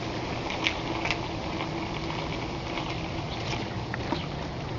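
Bicycle rolling along a paved path: a steady rushing noise, with a few short high chirps or squeaks scattered through it.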